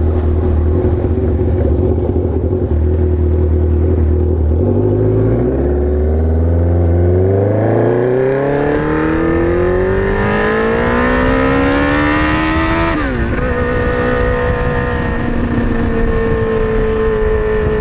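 2003 Kawasaki Z1000's inline-four through loud Danmoto XG-1 slip-on mufflers while riding: a steady run, then a long pull that rises in pitch for several seconds, a sharp drop about three quarters of the way in as the throttle is closed or a gear shifted, then steady running again.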